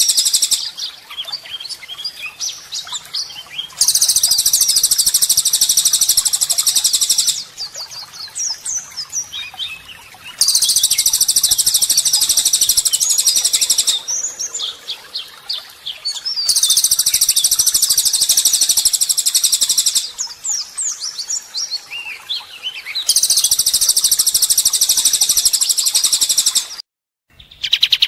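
Songbird master recording of harsh, rapid trills ('tembakan kasar'): four bursts of very fast, high, buzzy repeated notes, each about three and a half seconds long, alternating with shorter varied whistles and chirps, with a brief cut to silence near the end.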